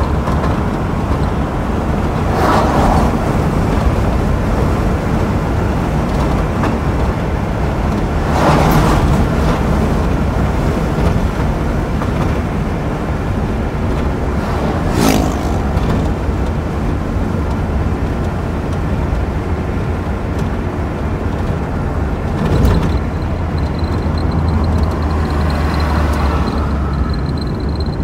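Road noise inside a moving car: a steady engine and tyre rumble, swelling briefly about four times as other vehicles go by.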